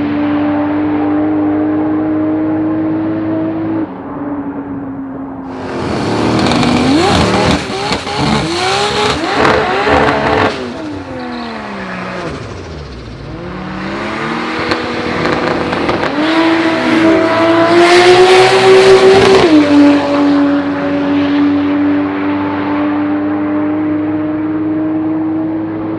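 Turbocharged Nissan RB30 straight-six in a drag-racing Holden VL Commodore running loud at steady revs, then revving hard and accelerating twice, with the pitch falling away between the two pulls.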